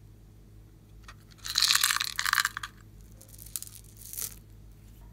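Small plastic beads and sprinkles being poured out of a container onto slime in a glass dish: a rattling pour of about a second, then two shorter, quieter ones.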